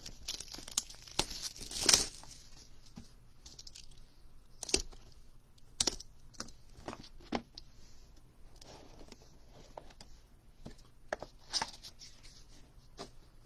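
Packaging of a sealed box of baseball cards being torn open and handled: tearing and crinkling with scattered sharp clicks and taps, the loudest rip about two seconds in.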